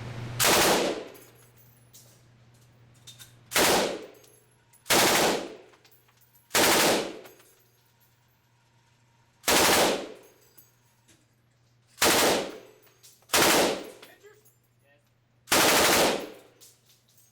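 M249 SAW light machine gun, belt-fed and chambered in 5.56 mm, fired on full auto in eight short bursts of about half a second each, one to three seconds apart.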